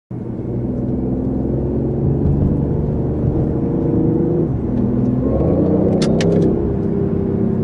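BMW i8's turbocharged 1.5-litre three-cylinder engine running under way, heard from inside the cabin. The engine note drops about halfway through, then climbs again. A few sharp clicks come near the end.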